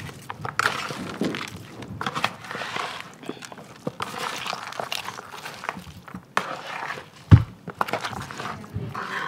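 Raw chicken pieces and sliced onions being tossed and worked by hand and with a spoon in a plastic bowl: irregular wet mixing noises with light clicks against the bowl, and one heavy thump about seven seconds in.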